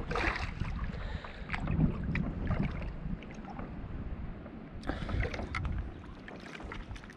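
Water splashing and dripping around kayak hulls and paddles, with a louder splash at the start and another about five seconds in, over a low rumble of wind on the microphone.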